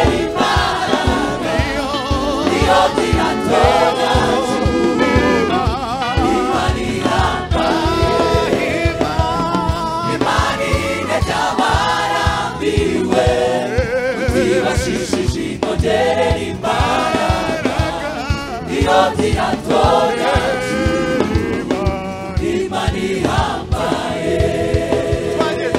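Gospel choir singing with live band accompaniment, keyboards and drums keeping a steady beat.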